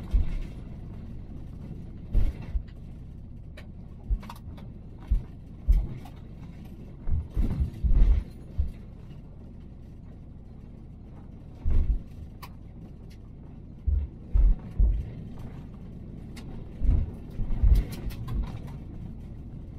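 Vehicle driving on a gravel road, heard from inside the cab: a steady low rumble broken by irregular thumps and rattling clicks as it goes over bumps.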